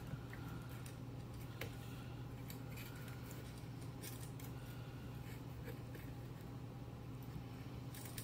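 Faint small metallic clicks and scrapes of a screwdriver working a terminal screw and wire on a Northern Electric 500 telephone's network, over a steady low hum.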